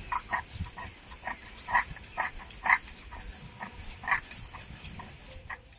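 A dog whimpering and yipping in short, irregular cries, about a dozen, the loudest near the middle.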